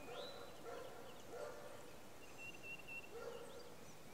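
Faint animal calls: short pitched cries repeating about once a second, with a thin high whistling tone and a quick rising call.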